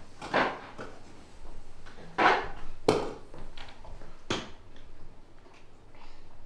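A few short knocks and scuffs of a wooden chair and dishes at a kitchen table as someone sits down and handles a plate. The loudest is a sharp knock about three seconds in.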